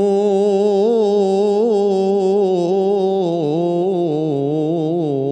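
A male munshid's solo voice singing an ibtihal, an Islamic devotional chant, holding one long melismatic note with small wavering ornaments that steps down in pitch about three seconds in. No instrument accompanies it.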